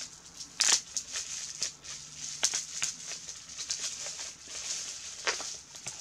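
Wrapping around a small gift being pulled open by hand: repeated crinkling and rustling with sharp crackles.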